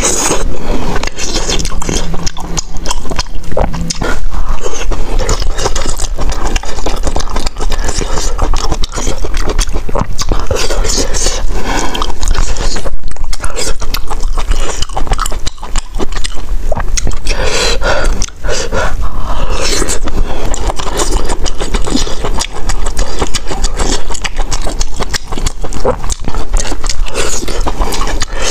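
Close-miked slurping and chewing of wide glass noodles and rice: wet, sticky mouth smacks and slurps, irregular and continuous.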